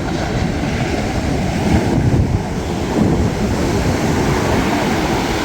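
Surf breaking along the shore, with wind buffeting the microphone in a heavy, uneven rumble.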